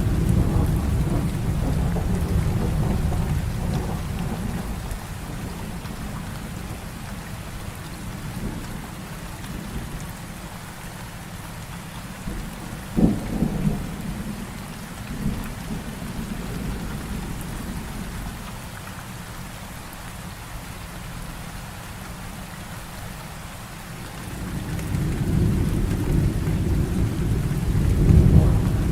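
Heavy rain falling steadily through a thunderstorm. A low rolling thunder rumble fades over the first few seconds, a sharp thunderclap cracks about halfway through, and the rumble builds again over the last few seconds.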